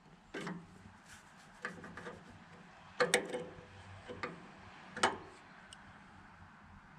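Steel combination wrench clicking and knocking against a bolt head and the surrounding metal while a bolt is loosened. There are about seven separate clicks, the loudest a quick double knock about three seconds in and another about five seconds in.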